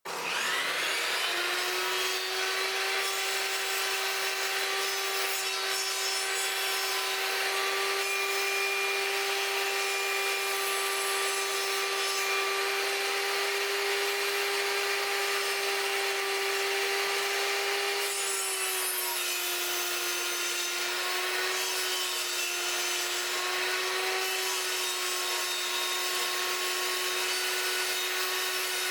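Electric woodworking power tool switched on, spinning up in the first second, then running steadily against wood with a steady hum and a rasping hiss. About two-thirds of the way through, its pitch drops slightly.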